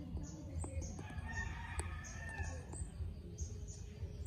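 A rooster crows once, starting about a second in. Under it are a steady low rumble and a short high chirp that repeats about twice a second.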